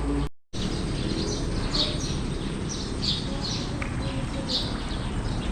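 Birds chirping in short high calls, a few each second at irregular spacing, over a steady outdoor background hiss. There is a brief gap in the sound about half a second in.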